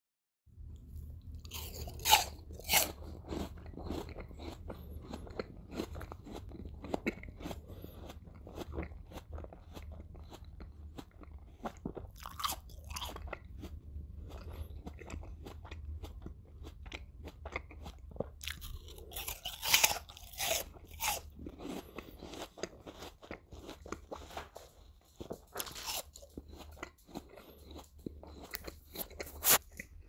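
A person biting into a raw apple and chewing it: several loud, crisp crunches as bites are taken, spread through, with quieter crunching and wet chewing clicks between them.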